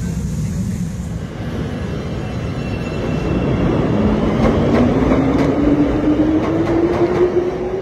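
CTA electric rapid-transit train pulling out of a station: a steady rumble, then a motor whine rising in pitch from about four seconds in as it gathers speed, with wheels clicking over rail joints.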